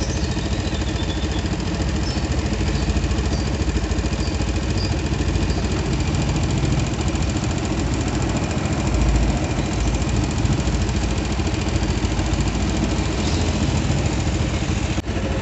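Yamaha Jupiter MX New's liquid-cooled single-cylinder four-stroke engine idling steadily when hot, with its electric radiator fan running. The whining, rubbing noise the engine makes when hot is gone while the fan spins.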